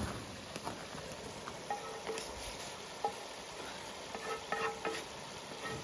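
Food frying and sizzling in a pan as it browns, a steady hiss with small clicks and ticks from stirring.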